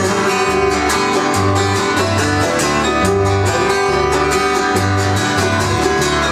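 Instrumental intro of a folk song: strummed acoustic guitar with a bass line, played live.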